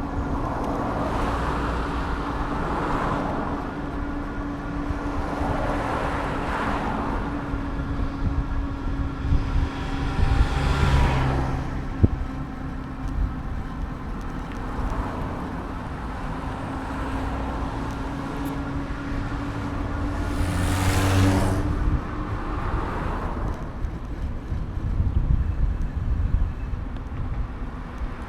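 Street traffic heard from a moving bicycle: several cars pass one after another, the loudest a little past two-thirds of the way through, over a constant low rumble of road and wind on the handlebar-mounted microphone. A steady hum runs underneath and stops soon after the loudest pass, and there is a single sharp click near the middle.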